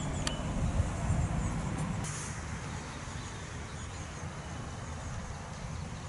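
Lakeside outdoor ambience: a steady low rumble with a few faint bird chirps above it.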